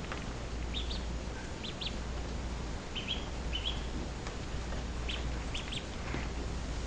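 Duckling peeping: short, high peeps in quick clusters of two or three, repeated every second or so.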